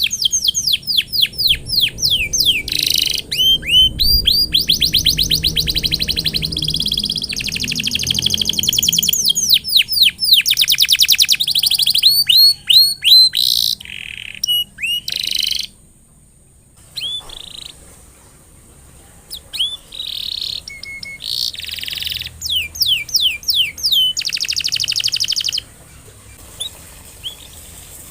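Domestic canary singing: fast trills of rapidly repeated, downward-sweeping high notes, in several runs. It breaks off briefly past the middle, then resumes and stops shortly before the end.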